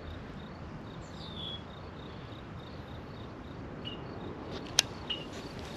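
Insects chirping in a steady, evenly pulsed rhythm, with a few short high chirps over it and a sharp click near the end.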